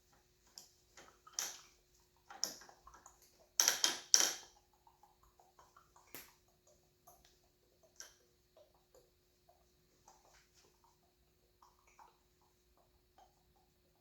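Metal engine parts and hand tools being handled: scattered light clicks and clinks, with a louder clatter of a few sharp knocks about three and a half to four and a half seconds in, then only sparse small ticks.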